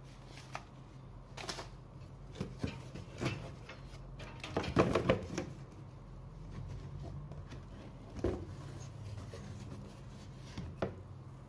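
Handling noises: scattered clicks and rustles of paper and plastic as a manual and a cordless impact driver are handled, loudest in a cluster about five seconds in, over a low steady hum. The driver's motor is not run.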